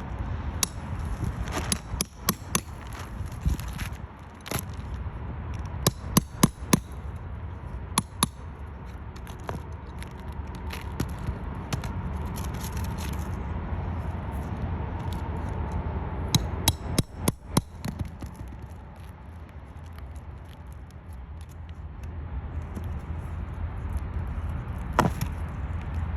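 Roofing work: bursts of sharp knocks and scraping on the roof, including two quick runs of five or six strikes, over a steady low rumble.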